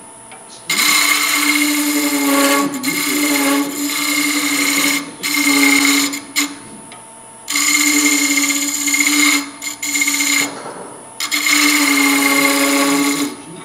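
Wood lathe spinning a wooden bell blank while a turning chisel cuts it, each pass a loud hissing cut over a steady hum. There are four passes with short pauses between them.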